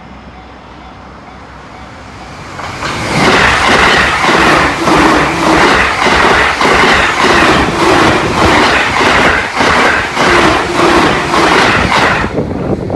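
A Joban Line train passing at high speed. It comes on loud about three seconds in with a regular, rhythmic clickety-clack of its wheels, then the noise falls away quickly near the end as the last car goes by.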